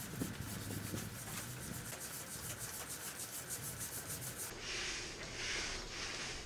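A long-handled tool scraping and rubbing along concrete in repeated rough strokes, as a bunker silo's walls are cleaned down.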